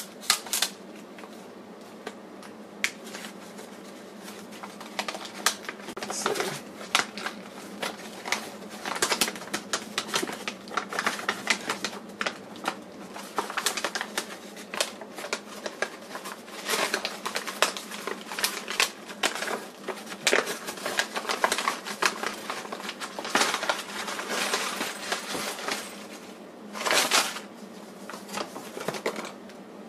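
Brown kraft paper wrapping and paper parts bags being unwrapped and handled: irregular crinkling and crackling throughout, with a longer, louder rustle near the end.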